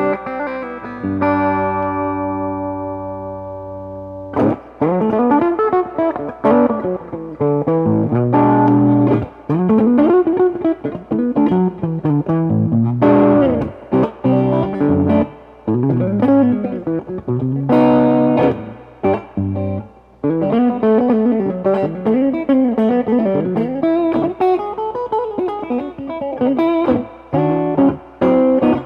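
Electric guitar, a Reverend Pete Anderson PA-1, played through a Mesa/Boogie 5:25 Express 1x10 combo amp. A chord is struck about a second in and left to ring for about three seconds, then picked single-note lines and chords follow.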